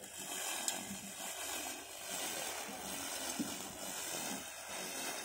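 Homemade lawn mower driven by an electric water-pump motor, running as it is pushed over grass: a steady hissing whir of the spinning cutter in the grass, with a couple of light ticks.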